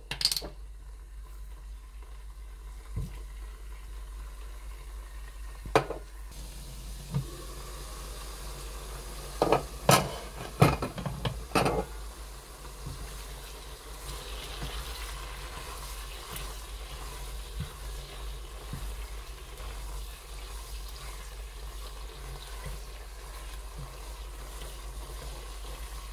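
Diced chicken thigh sizzling as it fries in hot oil in a pot, the sizzle growing louder about halfway through. A plastic spatula stirs the meat, knocking against the pot a few times, most around ten to twelve seconds in.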